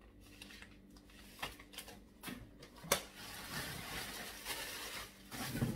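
Light paper and cardboard handling clicks, then clear plastic packaging wrap crinkling steadily as it is pulled out of a cardboard box, with a loud thump near the end.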